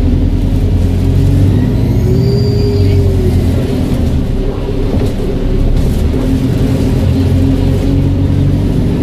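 ADL Enviro 400H hybrid double-decker bus's drivetrain running with a steady low drone and hum. About two seconds in, a high turbo whistle rises and falls over roughly a second.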